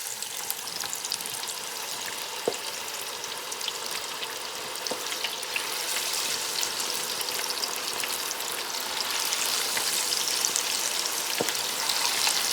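Chicken wings deep-frying in duck fat: a steady crackling sizzle that grows louder about two-thirds of the way in. A few sharp clicks sound over it.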